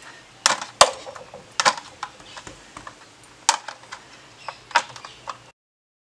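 Sealed retail packaging of a DDR4 RAM stick being picked and pried at to break its seal, giving a series of sharp plastic clicks and crackles, the loudest about a second in. The sound cuts off abruptly about five and a half seconds in.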